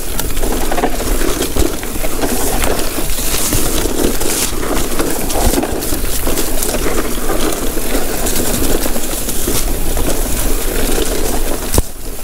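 Electric mountain bike on a Vittoria Mazza front tyre descending a rough trail: tyres crunching over stones and the bike rattling continuously with a dense spatter of small knocks.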